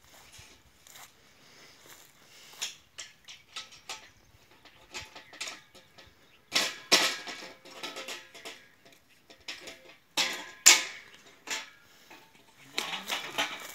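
Irregular metal clanks and knocks from a long steel pipe being handled against a tractor-mounted scissor lift, a few of them sharp and loud with a brief ring.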